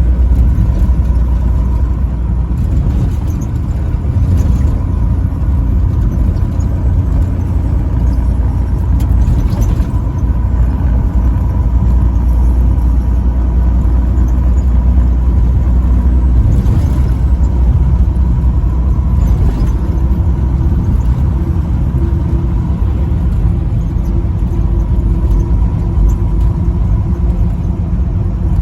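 Steady low rumble of vehicle and road noise on a highway. No horn sounds.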